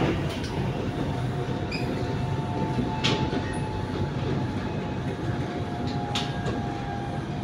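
Electric commuter train of Bangkok's SRT Red Line running at speed, heard from inside the carriage: a steady rumble of wheels on the track with a faint steady whine. A couple of sharp clicks stand out, about three seconds in and again near six seconds.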